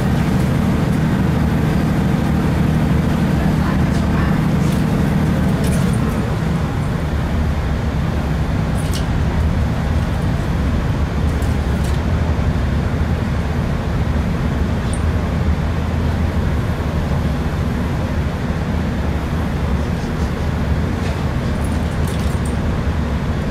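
Inside a Class 165 diesel multiple unit on the move: the underfloor Perkins diesel engine gives a steady deep drone over the rumble of wheels on rail. About six seconds in the engine note drops away, leaving mainly the running rumble with a few faint clicks.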